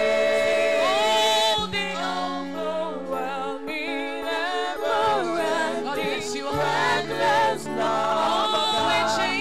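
A gospel worship team of several singers on microphones sings a slow praise song, with long held notes and vibrato over steady low backing notes.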